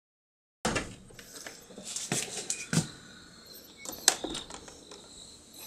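Irregular sharp clicks and knocks with faint rustling between them, starting suddenly out of silence about half a second in.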